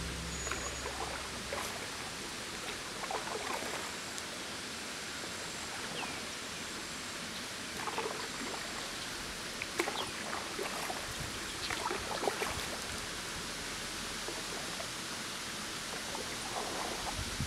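Canoe being paddled on calm water: scattered soft splashes and drips from the paddle at irregular intervals over a steady outdoor hiss, with a few short high chirps.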